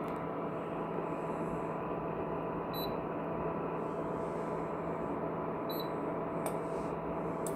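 Ailipu ALP-12 induction cooktop running with a steady whir and hum, its touch control panel giving two short high beeps about three seconds apart as buttons are pressed.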